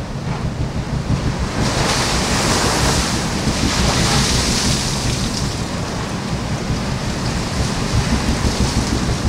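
Open sea rushing past a sailing ship, with wind buffeting the microphone in a steady low rumble. About a second and a half in, a wave surges and hisses, strongest around four seconds, then eases.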